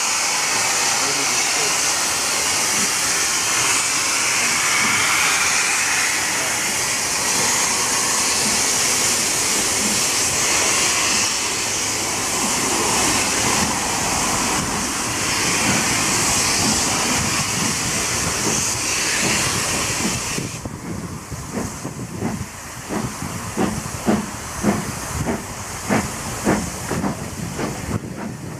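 LMS Black Five steam locomotive 44871 pulling away: a loud, steady steam hiss for about the first two-thirds. The hiss then drops away and leaves the locomotive's exhaust beats, about two chuffs a second, as it works the train.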